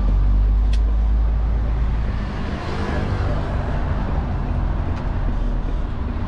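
Articulated lorry's diesel engine running under load as it drives, heard inside the cab: a steady low rumble that eases slightly about two seconds in, with a single sharp click under a second in.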